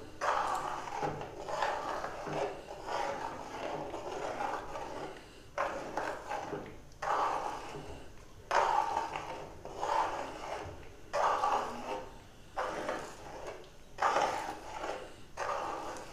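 Large metal spoon scraping and pushing thick ground chana dal paste around an aluminium kadhai as it is roasted in ghee, in repeated strokes about every second and a half.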